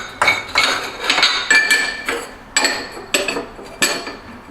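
Hard ceramic tile pieces clinking and clacking as they are handled and set down, about eight sharp knocks at uneven intervals, each ringing briefly.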